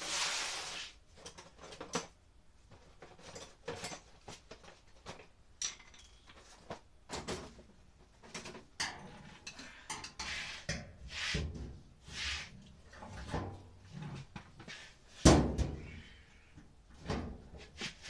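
Irregular metal knocks, clanks and scrapes from the sheet-metal front panel of a Maytag A512 top-load washer being worked back into place. The loudest knock comes about 15 seconds in.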